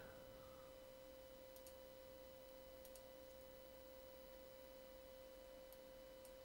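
Near silence: room tone with a faint steady electrical tone, and a few faint clicks, some in close pairs.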